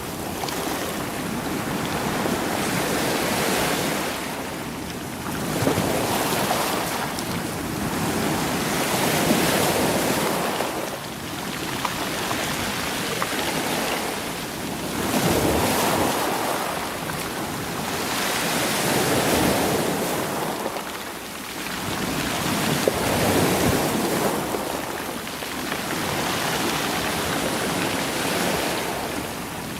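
Sea waves washing over a stony shore, rolling the stones. The rushing hiss swells and falls back every three to four seconds.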